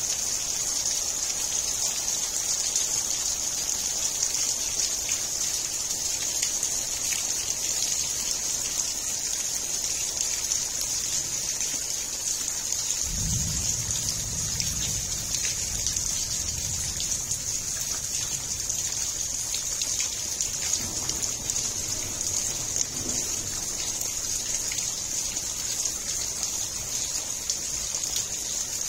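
Steady hiss of heavy monsoon rain falling. About thirteen seconds in, a low rumble rises and fades over several seconds.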